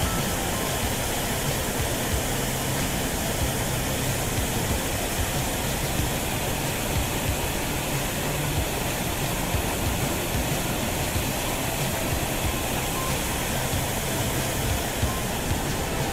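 Steady rushing of a creek running white over rocks below a waterfall: an even, unbroken wash of water noise.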